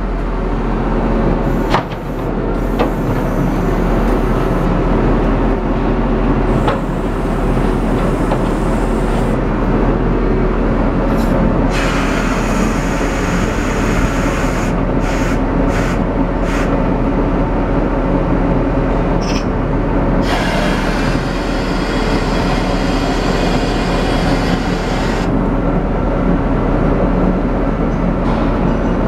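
Niigata NR653 rotary snowplow running steadily, a loud, even mechanical drone with a hiss that comes and goes in the higher range.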